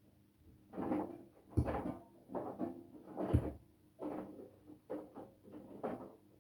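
Front-loading washing machine in its wash cycle: wet laundry and soapy water sloshing and thudding in the turning drum, in repeated swishes about once a second that start after a short pause.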